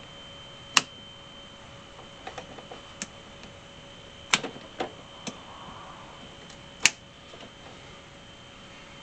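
Sharp metallic clicks and snaps of pliers working hose clamps onto the heater hoses at the heater core fittings: three loud clicks, about a second in, near the middle and near the end, with lighter ticks in between.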